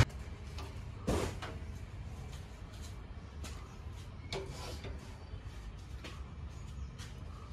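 Faint metallic clicks and knocks as the sliding poise is moved along the steel beam of a Delma platform weighing scale, one sharper knock about a second in, over a low steady hum.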